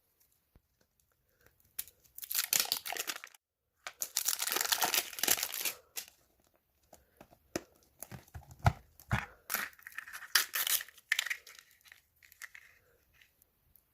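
Plastic toy packaging being torn open and crinkled by hand, in bursts of tearing with handling noise between them, as a Mini Brands surprise capsule is unwrapped.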